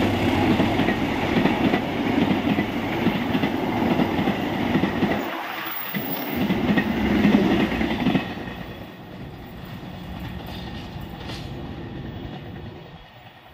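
Coaches of the Argo Dwipangga express train rolling past at speed behind a CC206 diesel-electric locomotive, with a loud steady rumble and rattle of wheels on rail. About eight seconds in the sound drops away and then fades as the tail of the train moves off down the line.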